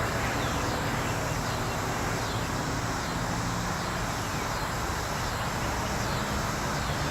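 Steady outdoor background noise with a low rumble, and faint short falling chirps high up, repeating about once a second.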